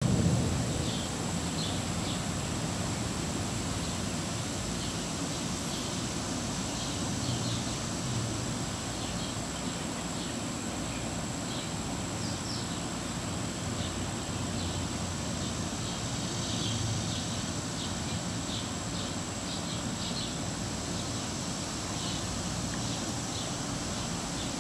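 Outdoor garden ambience: a steady low rumble under many short, high chirps scattered irregularly, with a thin steady high-pitched whine.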